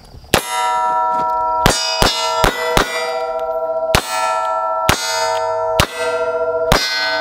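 Handgun shots from a .22 single-action revolver and a Hi-Point pistol fired two-handed, about nine shots at uneven spacing. Each hit sets steel plate targets ringing, and the clear metallic ring hangs on between shots.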